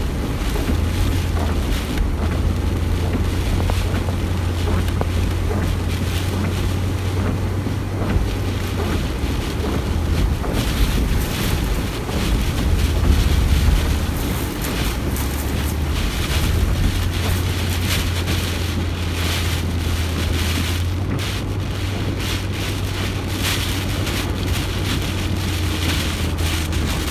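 Car driving slowly through shallow floodwater, heard from inside the cabin: a steady low engine drone with the wash of water and wind noise over it.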